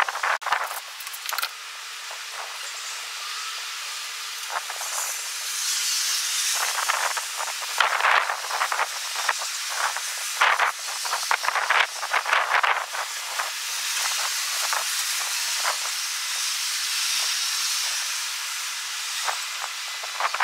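Strong wind blowing: a steady hiss broken by frequent short, crackling gusts.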